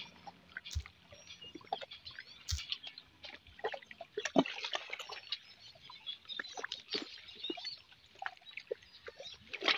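Seawater lapping at the shore, with an irregular crackle of small drips and trickles among the rocks.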